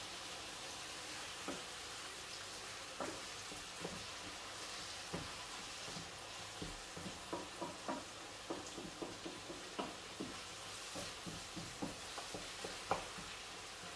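Tomato-and-vegetable sauce sizzling in a frying pan while a wooden spoon stirs it, with frequent light knocks of the spoon against the pan, coming thicker in the second half.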